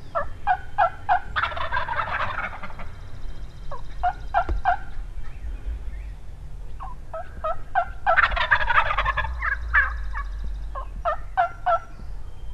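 Wild turkey gobbler gobbling twice, about six and a half seconds apart, each gobble a rattling call just over a second long. Runs of short, evenly spaced yelping notes come before and after each gobble.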